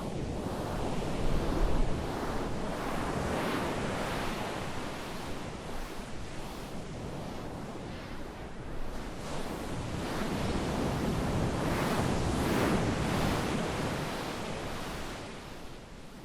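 A rushing noise sound effect that swells and fades in slow surges, like surf or wind, with no pitch or beat. The loudest surges come near the start and again past the middle.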